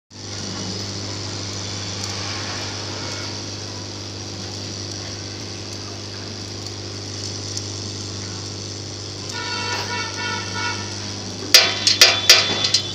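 Vibratory bowl feeder running, a steady low hum from its vibrating drive under a hiss of steel balls rattling in the bowl and along the track. Near the end, a run of sharp, loud clicks starts.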